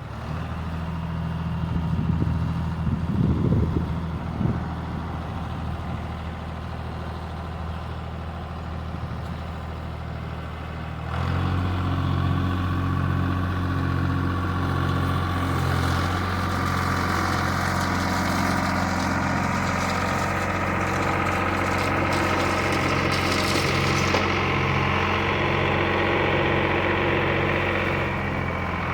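Tractor engine running steadily. About eleven seconds in it gets louder, as if the throttle is opened or a load comes on, and a higher whine builds over it from about sixteen seconds.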